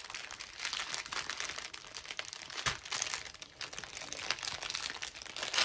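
Small plastic zip bags of diamond painting drills crinkling and rustling as a bundle of them is turned over in the hands, with a few sharper crackles.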